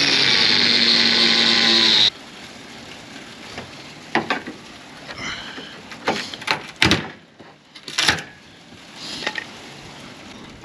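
Power tool cutting, loud and steady, stopping abruptly about two seconds in. A few separate knocks and clatters follow.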